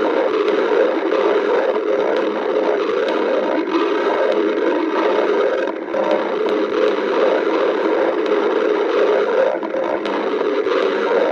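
A human stomach growling, heard up close: one long, unbroken growl that wavers in pitch and roughness without stopping.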